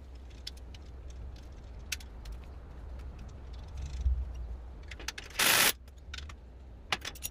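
Light metallic clicks and rattles as locking pliers are worked on a square aluminum tube frame, over a steady low rumble. One loud, short burst of noise comes about five and a half seconds in.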